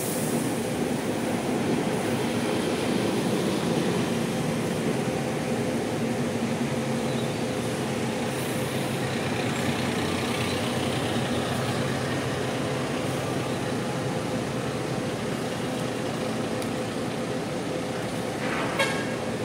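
Large buses' diesel engines running steadily at a terminal, with a short horn toot near the end.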